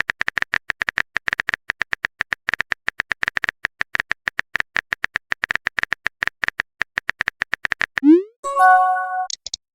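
Rapid, even clicking of a phone-typing sound effect, several ticks a second. About eight seconds in, it gives way to a short rising swoop and a brief chime of several tones, a message-sent alert.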